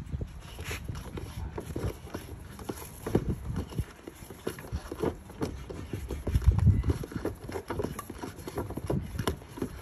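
Irregular light knocks, clicks and rubbing of a thick rubber power cord being fed by hand into a camper's plastic cable hatch.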